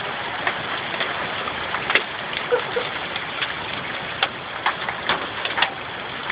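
Heavy downpour in a hailstorm: a steady hiss of rain with irregular sharp taps, about two a second, of drops and stones striking hard surfaces.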